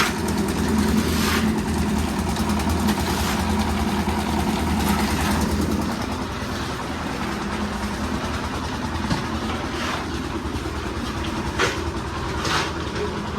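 An engine running steadily at idle, with a few short knocks or clanks over it.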